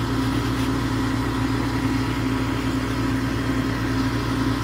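Mobile crane's engine running steadily under load, a constant low hum with no change in pitch.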